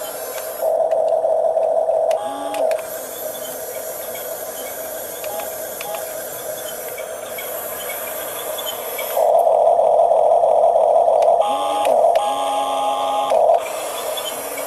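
Small electric motors of a Huina 1569 radio-controlled bulldozer whining, growing louder twice as the model drives, each time followed by a short steady hum of a second motor.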